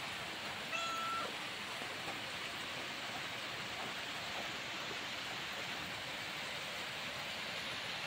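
Steady hiss of rain falling. About a second in, one short, even-pitched call is heard over it.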